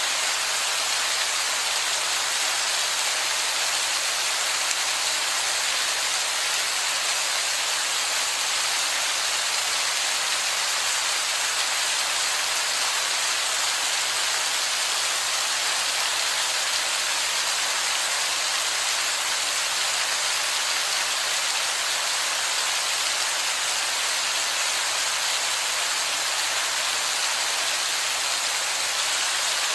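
Heavy rain falling steadily on wet rock: an even, unbroken hiss of splashing drops.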